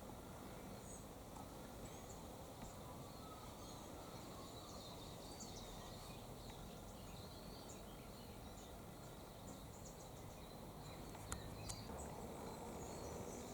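Faint outdoor ambience: scattered distant bird chirps over a steady background hiss with an insect-like hum, and two short clicks about eleven seconds in.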